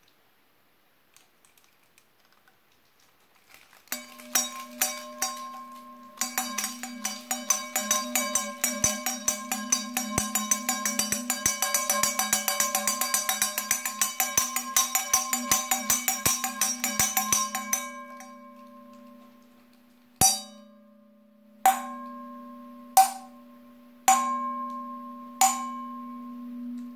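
Homemade bells made from silver trophy cups rung by hand. First comes a fast, continuous run of ringing strikes from about four seconds in until about eighteen seconds, which then fades. After that come five single strikes, each left to ring on.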